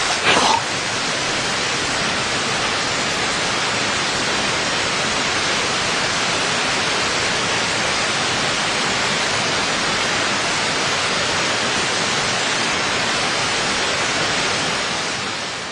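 Steady, even hiss of heavy rain that fades away near the end.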